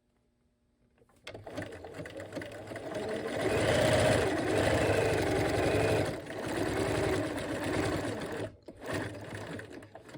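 Bernina 1130 sewing machine sewing a decorative stitch. It starts about a second in, runs fastest and loudest in the middle, slows, and stops briefly near the end.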